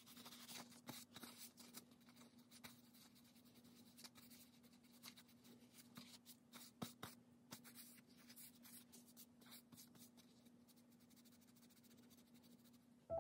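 Faint rubbing and scattered light ticks of a small nail wipe being rubbed over long acrylic-gel nails to clean them, over a low steady hum.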